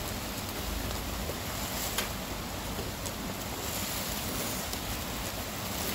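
Steady rain falling, with a low wind rumble on the microphone.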